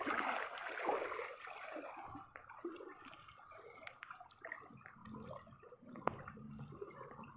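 Floodwater splashing and sloshing as someone wades through it, loudest in the first second or so, then quieter with scattered small splashes and drips.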